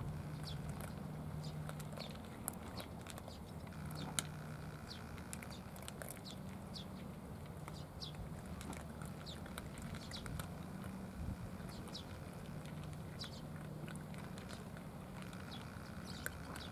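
Cats chewing food from plastic trays: soft, irregular clicks and smacks, over a low hum that comes and goes.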